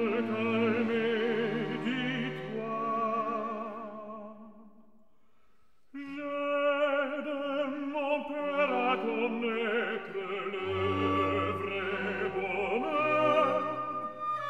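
Background music: operatic singing with vibrato over an orchestra. It fades down about four seconds in, and a new passage starts suddenly about two seconds later.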